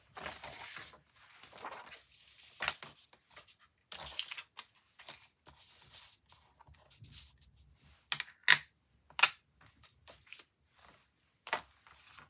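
Paper being handled and slid about on a magnetic stamping platform, with several sharp clicks and taps as magnets and pieces are set down; the two loudest clicks come about eight and nine seconds in.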